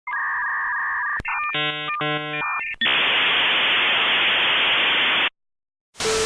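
Electronic sound effect: about a second of steady beeping tones over hiss, a click, then buzzy stacked tones, followed by a few seconds of loud even static hiss that cuts off suddenly. Near the end another burst of static with a low steady hum begins.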